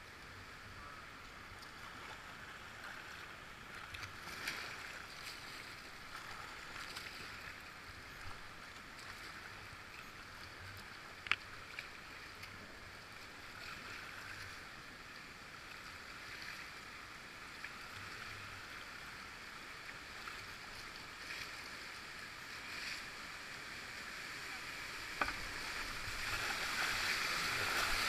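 Whitewater river rushing steadily around a kayak, with soft splashes every few seconds and two sharp clicks; the rush grows louder near the end.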